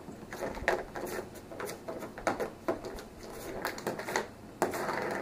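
Irregular plastic clicks and knocks from a ring-shaped cat toy as a cat paws at it, about a dozen over a few seconds, with a louder knock near the end.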